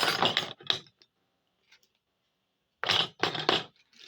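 Metal spanners clattering and scraping against each other as they are handled, in two rough bursts about three seconds apart.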